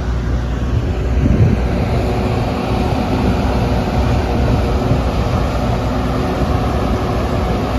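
Steady low rumble and hiss with a faint steady hum running through it.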